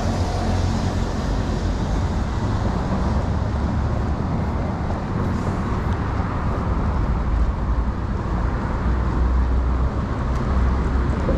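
Street traffic: cars passing along a city avenue, a steady wash of road noise with a low rumble.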